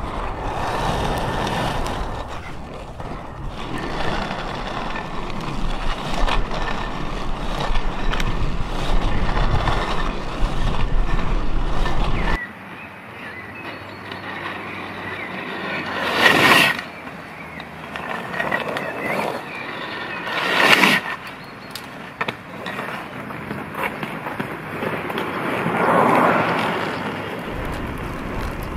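Inline skate wheels and frame rolling over pavement, a continuous rumbling whir. About twelve seconds in the sound cuts to a different, quieter recording with less low rumble, in which the rolling swells louder three times.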